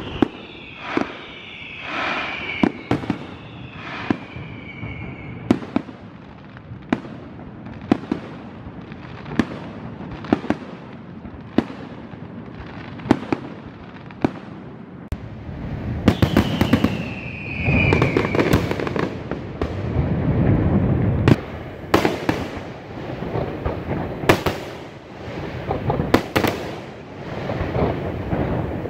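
Aerial fireworks display: a run of sharp bangs from bursting shells about once a second, thickening past the middle into a heavier barrage with low rumbling. A few high whistles slide down in pitch in the first few seconds and again just past the middle.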